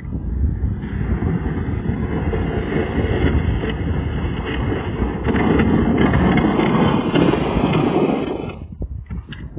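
A pickup truck plowing snow with a front plow blade: its engine running together with a steady rough noise, which drops away about eight and a half seconds in as the truck moves off.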